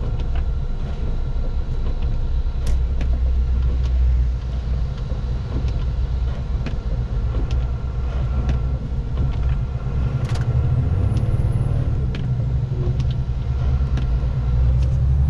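Heavy truck driving, heard from inside the cab: a steady low engine and road drone on a snow-covered highway, with a few faint clicks and rattles.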